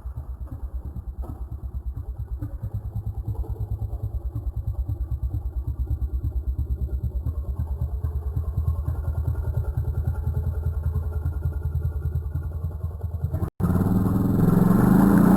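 Small Hyundai petrol chainsaw engine idling with an even, rapid pulsing beat. About 13 seconds in the sound breaks off for an instant, and the engine then runs louder and fuller, as when revved.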